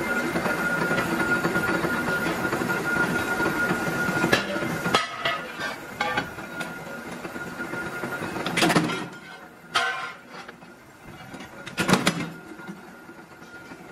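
Belt-driven power press running, with a steady high whine and heavy mechanical clatter that drops away about five seconds in. After that come a few sharp metal clanks as a steel disc blank is handled and worked in the press.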